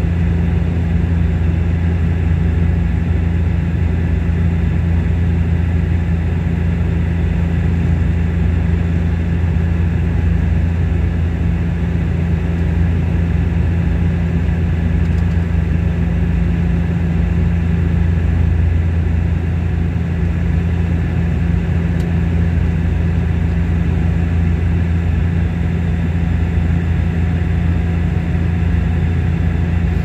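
Bombardier Q400's Pratt & Whitney PW150A turboprops and six-bladed propellers droning steadily, heard inside the passenger cabin: a loud, even, low hum with a strong deep tone and its overtone.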